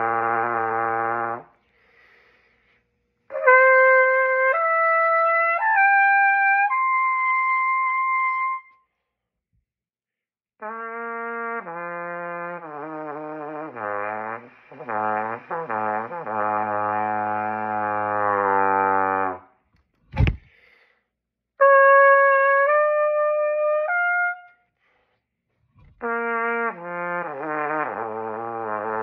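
Trumpet playing short phrases, mostly notes stepping upward into its higher range, with a longer passage of notes sliding in pitch in the middle and pauses between phrases. A brief thump about twenty seconds in.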